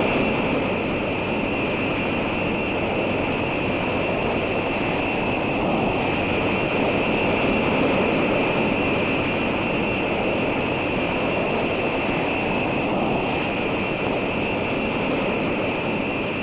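Jet engines of a B-52 mothership running as it taxis: a steady loud rushing noise with a high, even whine held over it.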